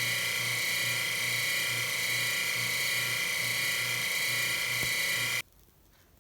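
Electric machine-shop tool running with a steady high-pitched whine and a low pulsing hum, stopping abruptly about five seconds in, after which there is near silence.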